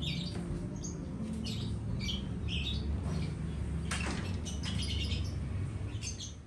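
Small birds chirping, short high calls repeating every half second or so, over a low steady rumble, with a single sharp click about four seconds in.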